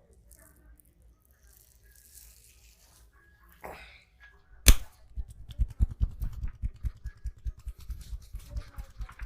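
Hand massage percussion: a single sharp snap about halfway through, then rapid deep thumps of hands striking the body, about five or six a second.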